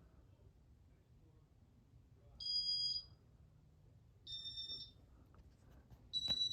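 Three high-pitched electronic beeps, each about half a second long and roughly two seconds apart, over a faint low hum.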